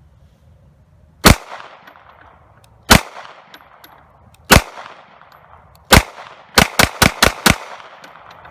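Ruger American Pistol in 9mm firing nine shots, each with a ringing echo: four spaced about a second and a half apart, then five in rapid succession near the end. The pistol keeps firing right after being thawed out of ice, a sign it still works after the freeze test.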